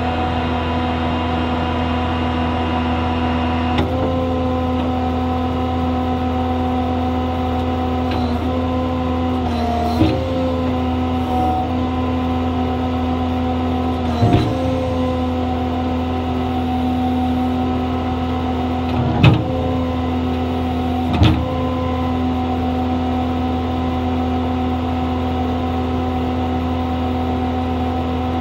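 Duramax 6.6-litre V8 diesel running steadily with the PTO-driven hydraulic pump engaged, giving a steady whine. About five times the pitch dips briefly with a knock as the crane's hydraulics take load.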